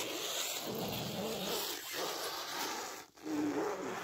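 Plastic stretch film being pulled off its roll and wrapped around a frame of tree branches: continuous rasping noise, broken briefly about two and three seconds in.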